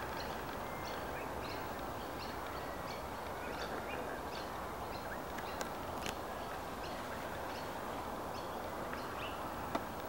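Many small birds chirping with short, high calls repeated over and over, above a steady outdoor hiss. A sharp click is heard about six seconds in and again near the end.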